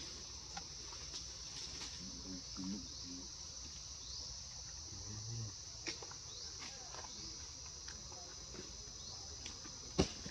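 Steady, high-pitched drone of an insect chorus, with short rising chirps now and then and a few soft clicks. A sharp click near the end is the loudest sound.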